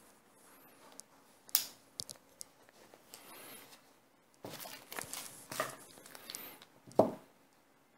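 Handling noises as parts are picked up and moved about on a table: scattered rustles, clicks and light knocks, the loudest a single knock about seven seconds in.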